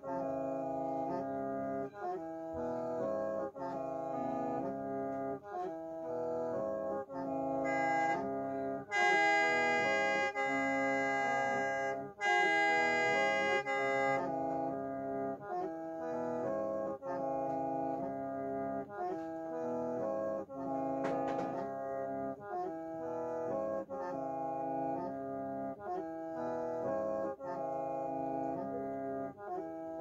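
A traditional Mro bamboo mouth organ with several long bamboo pipes is played solo. It sounds several held tones at once under a repeating melodic figure, and gets louder and brighter for a few seconds about nine seconds in.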